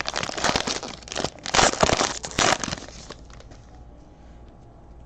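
Trading card pack wrappers being torn open and crumpled, a dense crinkling and crackling for about three seconds that then stops.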